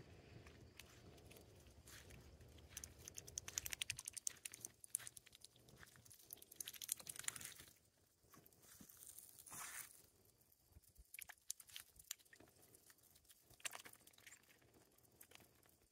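Toulouse goose dabbling its bill in a shallow muddy puddle: faint runs of small wet clicks and splashes, coming in short bursts a few seconds apart.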